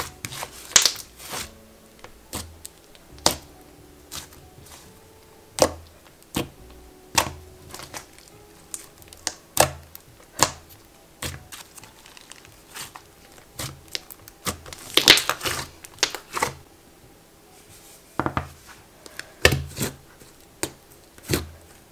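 Thick, creamy DIY clay butter slime squished, poked and pressed by hand, giving irregular sharp clicks and pops with quiet gaps between. Faint soft background music runs underneath.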